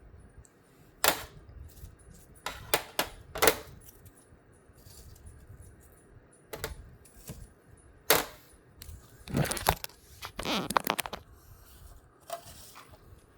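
Pets eating apple pieces from bowls: a scattered run of sharp clinks and clicks, with a quick cluster of three early and a denser run near the end.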